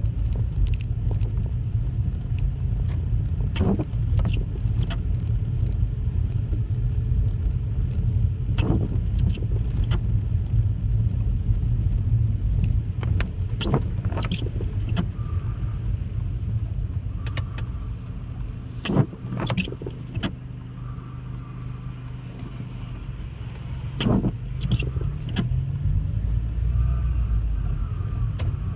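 A car's low road and engine rumble, heard from inside the car while driving, with irregular sharp rattles and clicks every few seconds. The rumble drops a little about two-thirds of the way through, then comes back up.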